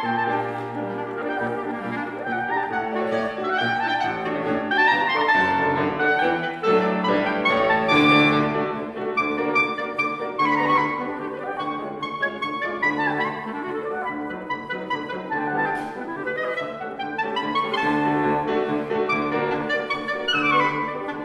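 Clarinet playing fast rising and falling runs, with a Bösendorfer grand piano accompanying.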